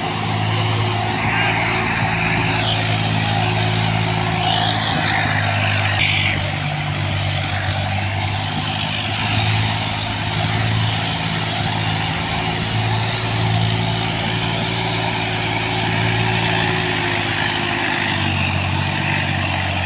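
Heavily ballasted tractor's diesel engine running steadily under heavy load as it pulls a harrow through the soil, a constant low drone.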